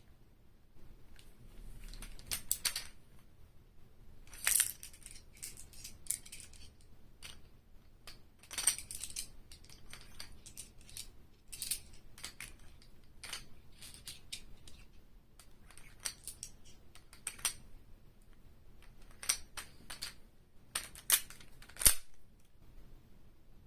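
Airsoft guns being reloaded by hand: an irregular series of sharp mechanical clicks and clacks from magazines, slides and actions, the loudest near the end.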